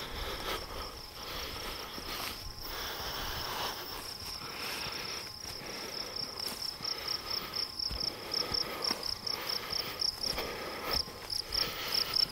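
A grassland insect calling steadily at a high pitch, its call breaking into rapid pulses, about four a second, in the second half. Underneath, a rustling of tall meadow grass brushed by walking feet.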